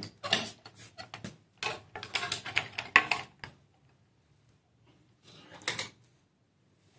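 Rapid wooden clattering and rattling of a string marionette being walked off a small puppet stage and handled, for about three and a half seconds, then a brief second bout of rattles near the end.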